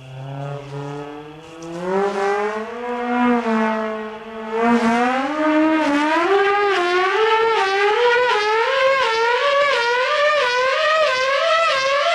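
Dive siren on a radio-controlled model dive bomber winding up: its wail climbs steeply in pitch over the first half, then holds high with a quick, regular wavering.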